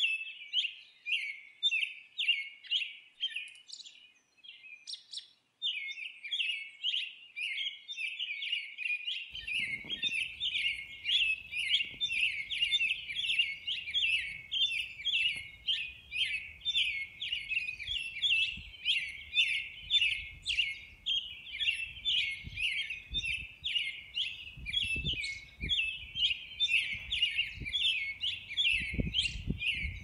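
Small birds chirping in a dense, continuous chorus of quick high chirps, several a second. From about nine seconds in, a faint low rumble runs underneath, and a few soft low thumps come near the end.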